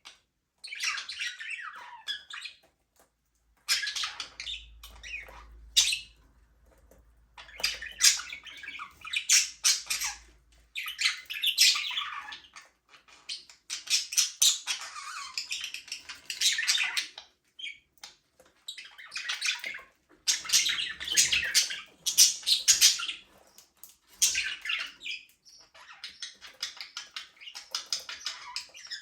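A flock of budgerigars chirping and chattering in bursts of a second or two, with short pauses between them.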